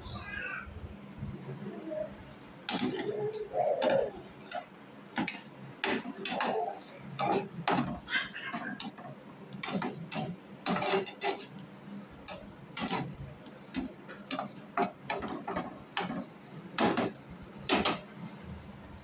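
A spatula scraping and knocking against a nonstick frying pan while brinjal slices are stirred and turned in it, in irregular clicks and scrapes.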